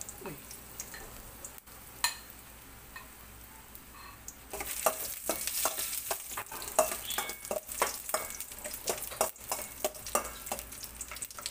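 Sliced ginger sizzling in hot oil in a stainless steel pan as it is sautéed and stirred, with the clicks and scrapes of the stirring utensil against the pan. The sizzle grows louder about four and a half seconds in, once the stirring starts.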